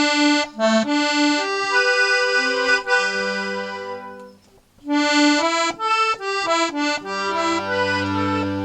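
Stefanelli 72-bass accordion, freshly restored, playing a melody over held bass notes. The phrase trails off about four and a half seconds in, and the playing starts again half a second later.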